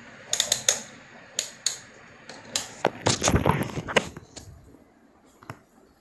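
Rotary knob of a wall-mounted electronic fan speed controller turned by hand, giving a run of sharp, irregular clicks. Around the middle comes a denser cluster of louder knocks and rustling, and a single click near the end.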